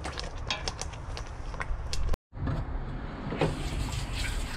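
Kitchen handling sounds: light clicks and knocks over a steady low hum, broken by an abrupt cut about two seconds in.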